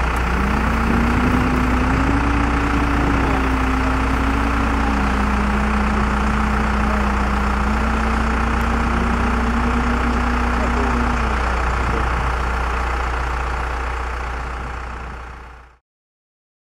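Diesel engine of a wheel loader running under load as it dumps snow into a dump truck, a steady low drone whose pitch rises and falls a little; it fades out near the end.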